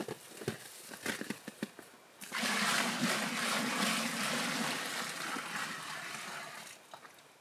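Water poured out of a plastic bucket in one steady gush lasting about four seconds, starting suddenly and tailing off. Before it come scattered light clicks and crunches.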